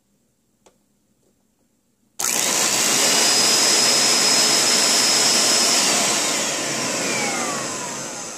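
Bissell SpotBot Pet spot cleaner switching on about two seconds in: its motors start with a sudden loud whirring rush and a thin high whine, the pump pushing water out of its outlet. From about six seconds it winds down with a falling whine.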